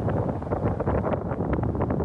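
Wind buffeting the microphone, a rough, uneven rumble of noise.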